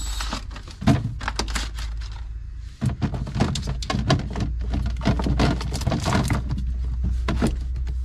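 Apples being set one by one into a clear plastic fridge crisper drawer: a quick run of knocks and clunks, several a second, over a steady low hum.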